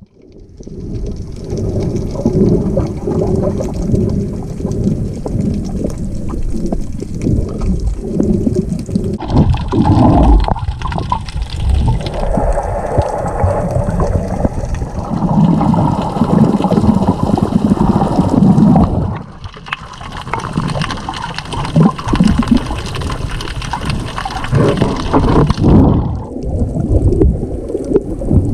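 Water sloshing and gurgling heard from under the surface, a muffled, low rumbling noise. Its character changes abruptly about a third of the way in, again past the middle and near the end.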